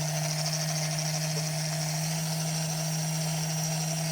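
Paper shredder's electric motor running steadily with its switch held down, a low hum with a thin high whine above it.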